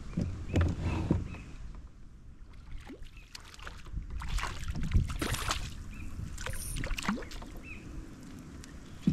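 A bream being fought and landed from a fishing kayak: scattered knocks and clicks of rod, reel and hull, with short splashes as the fish comes to the side.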